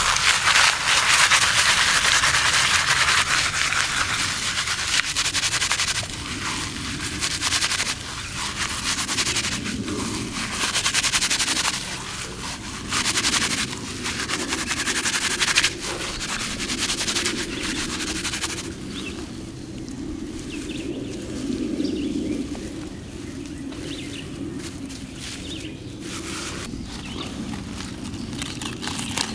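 Dry twigs and leaf litter rustling and crackling as brush is handled, with many sharp snaps; loudest in the first six seconds, then in bursts, and softer after the middle.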